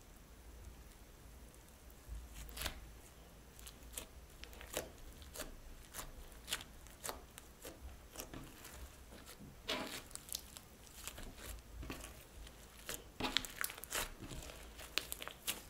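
Slime being handled, squished and pulled, making irregular sharp sticky clicks and pops, several a second, starting about two seconds in.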